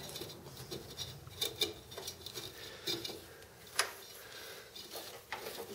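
Faint, scattered metallic clicks and scrapes as hands work the belt and pulley hardware under a riding mower, with a few sharper ticks among them.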